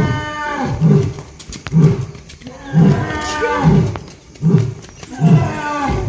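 Asiatic lion roaring in a repeated series of short calls, about one a second, roughly seven in all.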